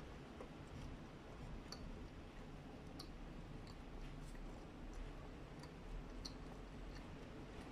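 A person chewing a mouthful of soft burger with the mouth closed: faint wet mouth clicks and smacks at irregular intervals, about one a second.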